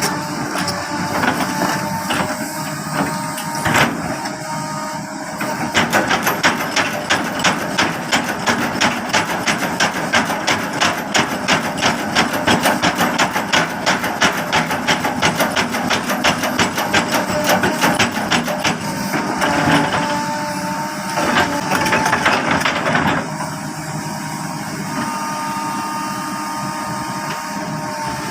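Excavator engine running, with a rapid, even run of knocks, about three a second, from about six seconds in to nearly twenty seconds in and again briefly after. The engine is heard alone at the start and end.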